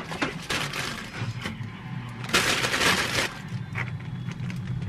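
A plastic bag crinkling and rustling as bean sprouts are handled and tipped into a plastic salad spinner basket, loudest for about a second midway. A low steady hum sits underneath.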